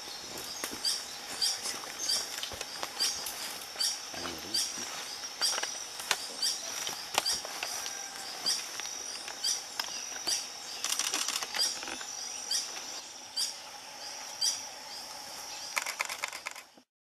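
Green Hermit singing: a short, high, squeaky note repeated about twice a second, over a steady high-pitched hum. Near the end comes a brief whirr of its wings.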